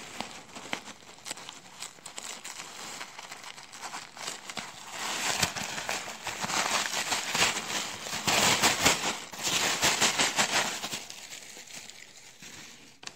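Paper packing filler (crinkle-cut paper shred and tissue paper) rustling and crinkling as hands dig through a packed box. It is loudest in the middle and fades near the end.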